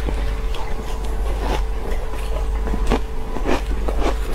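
Shaved ice being chewed with irregular crunches and crackles close to the microphone, with a metal spoon scooping ice from a plastic bowl near the end. A steady low hum runs underneath.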